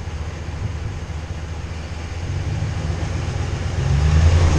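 Ram full-size pickup's engine rumbling as it crawls over a rock, the rumble swelling about two seconds in and again near the end as throttle is added.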